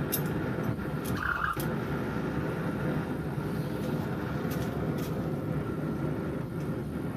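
Steady mechanical running noise with a few light clicks and a brief high squeal about a second in.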